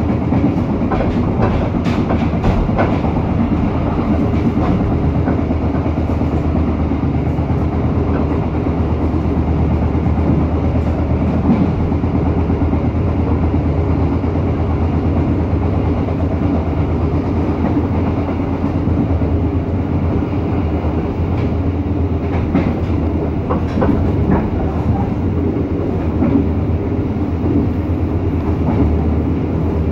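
Passenger train running steadily along the line, heard from inside the carriage: a continuous low rumble of wheels on rail, with a few sharper clacks now and then.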